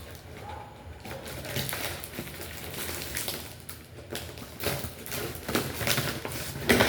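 Packaging being handled and opened: irregular rustling and crinkling with scattered clicks and knocks, the sharpest knock near the end.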